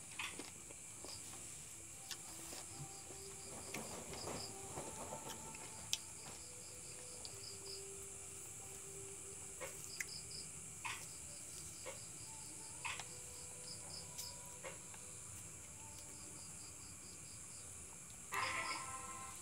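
Crickets and other night insects chirping steadily: a continuous high trill with repeated groups of short chirps. A few faint clicks from a lemon being peeled by hand, and a short burst of music near the end.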